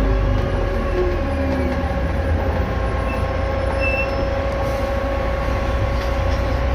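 VDL DB250 bus's electric radiator fan making a steady hoover-like whine over a low, steady engine rumble.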